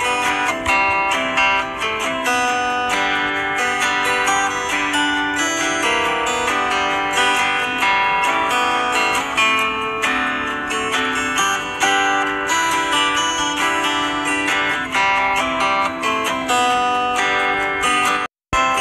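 Background music of strummed and plucked guitar, cutting out for an instant near the end.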